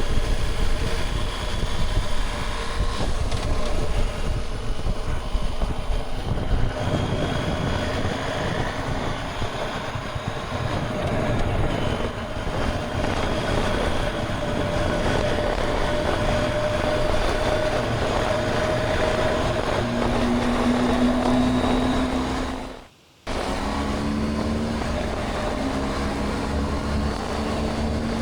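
BMW R 1250 GS boxer-twin motorcycle running at road speed, with steady wind and road noise over the engine note, which slowly rises in pitch partway through. The sound cuts out for a split second near the end.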